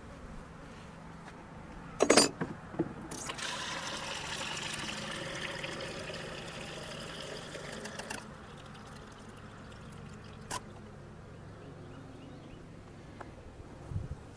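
Liquid feed poured from a container into a beehive feeder for about five seconds, stopping abruptly, after a short clatter as the container is handled. A low hum of bees runs underneath.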